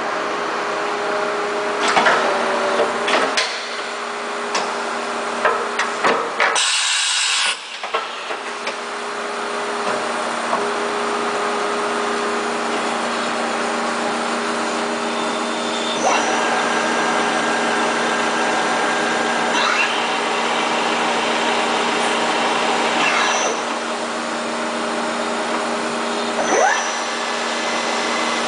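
CNC vertical machining center running: a steady machine whine made of several held tones, with scattered clicks and a few short sliding changes in pitch. A burst of air hiss lasts about a second, around seven seconds in.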